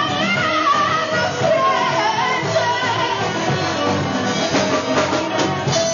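Live band playing a song, with a woman singing over guitars, saxophone and drums. The singing fills the first half, and a run of sharp drum hits comes near the end.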